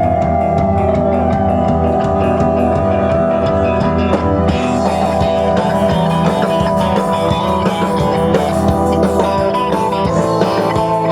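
Live rock band playing, with electric guitar prominent over bass and drums; a bent, held guitar note opens it, and the drum and cymbal hits grow busier from about four seconds in.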